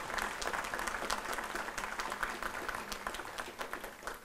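Crowd applauding, dense clapping that thins out and fades near the end.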